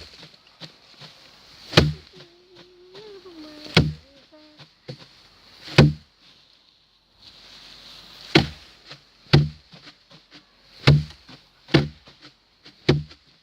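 Repeated hard blows knocking on wood, one about every one to two seconds, each a sharp crack over a dull thud, with a short silent gap about halfway through.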